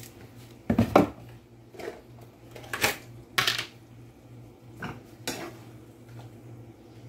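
Kitchen clatter: metal utensils and cookware clinking and knocking, about six sharp strikes spread over the few seconds, the loudest about a second in and again around three and a half seconds in, over a faint steady low hum.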